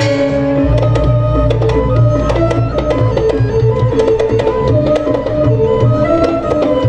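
Balinese gong kebyar gamelan playing dance music: bronze metallophones sounding quick changing tones over drumming. A deep low tone comes in just under a second in and holds beneath the ensemble.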